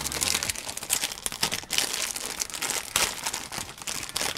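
Paper packet of Hastings piston rings crinkling and rustling as it is handled and opened, in irregular crackles.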